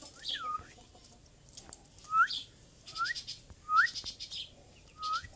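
Pet Indian ringneck parakeet calling: five short upward-sweeping chirps, spaced unevenly about a second apart.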